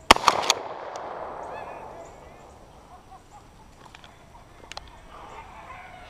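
A shotgun shot fired at close range to finish a wounded dove, right at the start: one sharp blast with quick echoes and a report that fades over a second or two.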